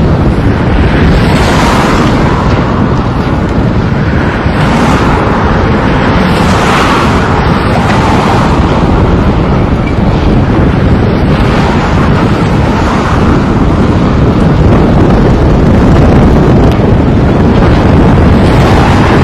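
Volvo demolition excavator working a wrecked building: its diesel engine running under a steady low rumble, with crashes of metal and concrete debris every few seconds. Wind buffets the microphone.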